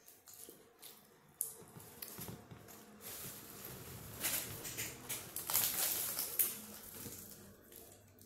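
Close-up eating sounds: chewing mouthfuls of shawarma and picking pieces off the flatbread wrap by hand, with small clicks and a louder crackly rustling stretch in the middle.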